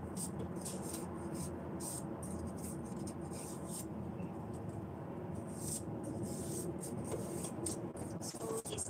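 A kitchen knife scraping and peeling the skin off a celtuce (stem lettuce) stalk in quick, irregular strokes, over a steady low background hum.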